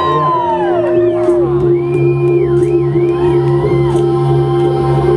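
Electronic music playing for the aerial silk act: a held drone and a steady bass line, with high gliding sounds that rise and fall over them, which may include whoops from the audience.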